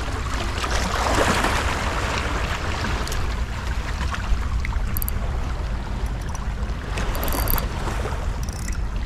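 Steady wind rumble on the microphone over surf washing on the shore, with a few light high clicks about five and seven seconds in.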